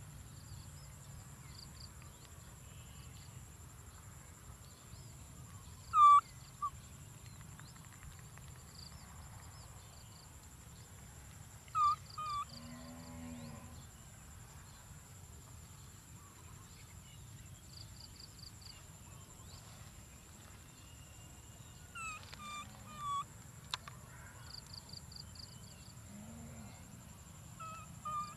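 Baby macaque giving short, high squeaky calls, a few at a time, several seconds apart.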